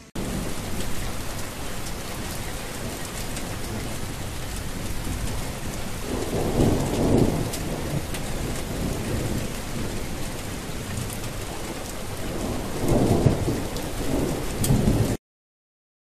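Steady rain hissing, with a roll of thunder about six seconds in and another about thirteen seconds in. It starts abruptly and cuts off suddenly just before the end.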